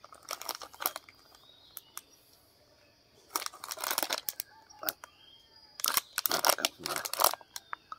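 Plastic wrapper of a packaged snack cake crinkling as it is handled, in short bursts, the busiest about four seconds in and again from about six to seven seconds in.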